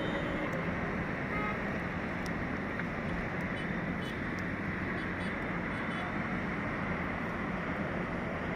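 Steady drone of construction machinery running on site, an even engine noise with no change in pitch.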